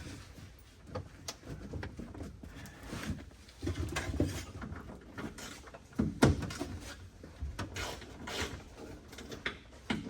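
Irregular clunks, clicks and rattles of hand work on a car's dash: parts and tools being handled and pried loose. One louder knock comes about six seconds in.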